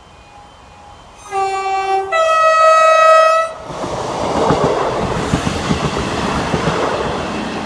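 Transport for Wales Class 158 diesel multiple unit sounding its two-note horn about a second in: a short lower note, then a louder higher note held for about a second and a half. The train then runs past with a steady rumble and a clatter of wheels over the rail joints, slowly fading.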